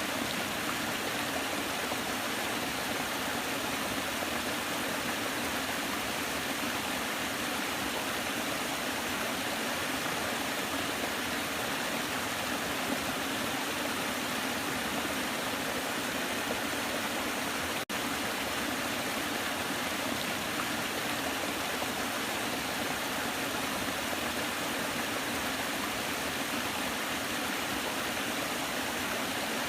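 Waterfall rushing in a steady, even wash of water noise, with one momentary break about two-thirds of the way through.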